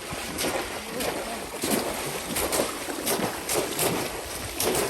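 River water splashing and sloshing in irregular bursts, with faint voices in the background.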